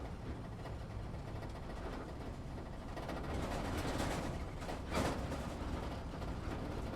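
Off-road truck or SUV driving over a bumpy dirt and rock trail, heard from inside the cab: a steady low engine and drivetrain rumble with body rattle, and a single jolt about five seconds in as a wheel hits a bump.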